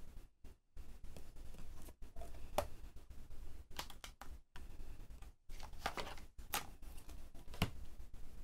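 Hands handling a clear stamp on a stamping press: a few light clicks and taps, the sharpest about seven and a half seconds in.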